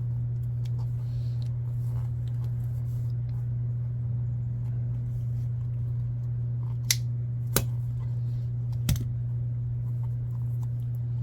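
Three sharp clicks from a hand leather punch being squeezed to punch vent holes in a soft RC crawler tire, over a steady low hum.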